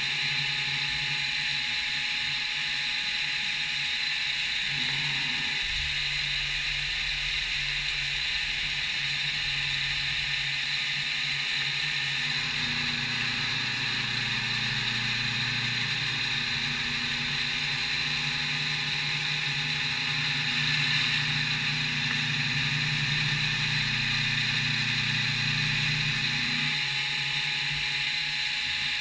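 CNC machine running a machining pass on a metal part: a steady high spindle whine, with lower motor tones that shift in steps several times.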